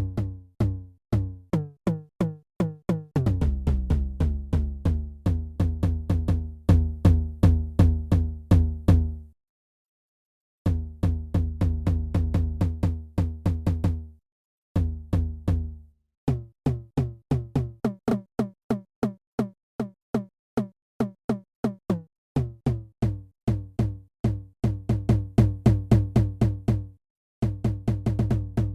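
EGDR909, an app emulation of the Roland TR-909 drum machine, playing looping electronic beats of kick drum and percussion hits. The beat stops briefly and restarts with a new groove three times: about 9 seconds in, about 14 seconds in, and just before the end.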